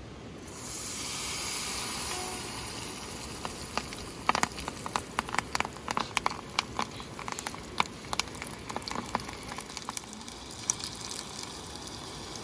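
Food going into hot oil at a camp stove: a sudden sizzle that swells, then a stretch of dense crackling and spitting pops that eases back to a steady sizzle.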